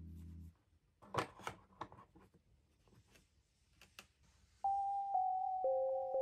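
Background music stops about half a second in, leaving a few light taps and clicks in a quiet room. About four and a half seconds in, a new piece of music starts with clear plucked, bell-like notes.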